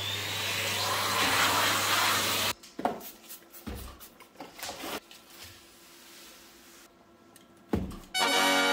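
Cardboard packaging being opened and handled. A loud rushing, sliding noise for about two and a half seconds gives way to scattered rustles and knocks, then a thump near the end, followed at once by a steady pitched hum.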